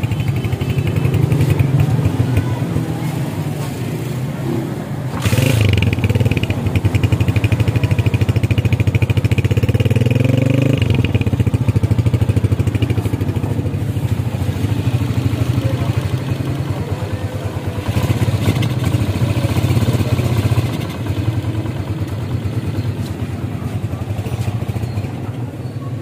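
Honda CG125's single-cylinder four-stroke engine running. It is revved up about five seconds in, held at higher revs for a while, then eased back toward idle.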